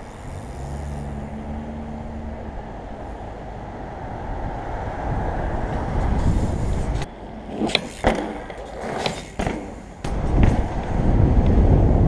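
Bicycle tyres rolling on tarmac with wind on a helmet-mounted microphone, with a low hum for the first couple of seconds. About seven to nine seconds in come a few sharp clacks and rattles as the bike drops off a ledge and lands, then heavy wind buffeting near the end.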